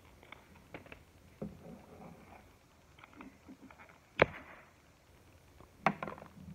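Tags being pulled off plush toys: small clicks and rustling from the handling, with two sharp snaps about four and six seconds in.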